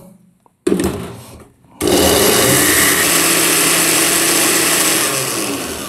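Blender puréeing strawberries with no added water. It gives a short burst about half a second in, then runs steadily from about two seconds in and dies away near the end.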